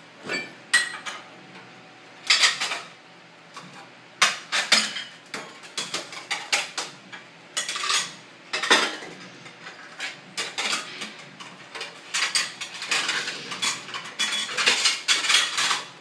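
Dishes and plastic bowls knocking and clattering against a dishwasher's wire rack as they are lifted out and set back down, in irregular clusters of knocks and rattles.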